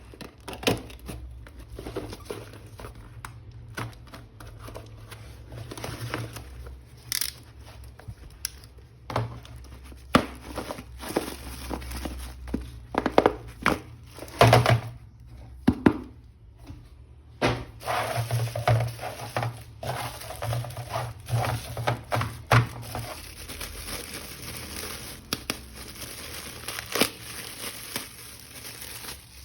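A toy action figure being unwrapped from its plastic packaging by hand: irregular rustles and sharp clicks.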